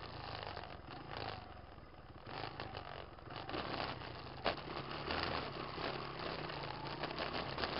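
Small off-road vehicle's engine running at low speed while it pushes through tall weeds, with stems brushing and scraping against it. A single sharp knock about four and a half seconds in.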